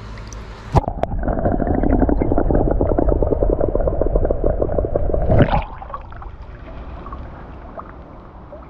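Muffled underwater churning and bubbling, heard through an action camera held under the water, as a wels catfish is released. A knock about a second in, then rapid dense churning for about four and a half seconds, dropping to a low rumble.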